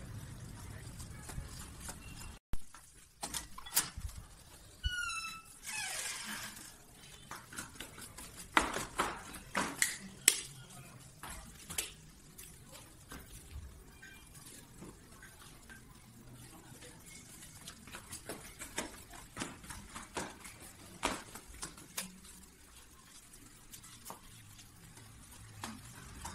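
Low street rumble that cuts off abruptly after about two and a half seconds. Then scattered clicks and knocks of footsteps and handling as a phone camera is carried through a quiet apartment, loudest around nine to ten seconds in, with a brief squeak about five seconds in.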